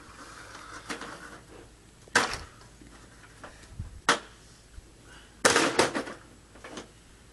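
A ladder knocking and clattering as it is handled: sharp single knocks about two and four seconds in, then a louder rattling clatter about five and a half seconds in as the ladder drops onto the ground.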